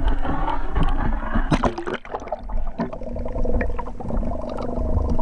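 Water splashing and gurgling around a camera held at the surface, turning to muffled underwater noise once it is submerged.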